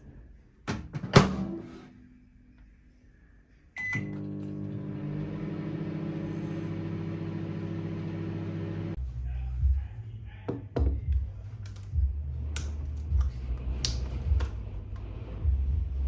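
Microwave oven in use: a sharp knock about a second in, a short beep near four seconds, then the oven running with a steady hum for about five seconds until it cuts off. Low rumbling and a few knocks follow.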